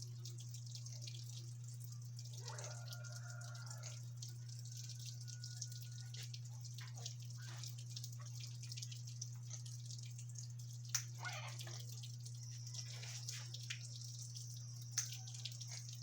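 Pet parrots making soft short calls and sharp clicks, with two louder clicks late on, over a steady low electrical hum.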